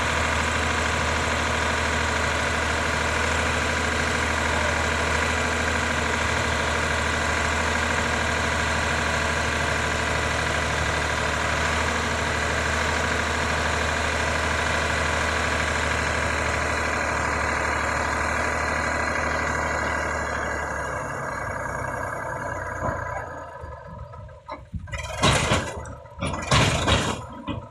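Sonalika DI 750 tractor's diesel engine running steadily while its hydraulic lift tips the loaded trolley. After about twenty seconds the engine sound drops away, and a few loud, irregular bursts follow near the end.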